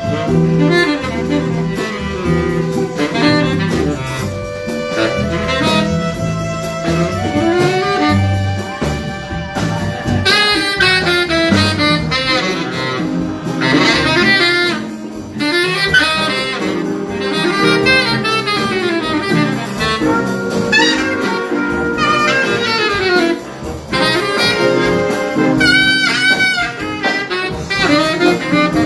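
High school jazz big band playing live, the saxophones carrying the lead over brass and a rhythm section with drum kit.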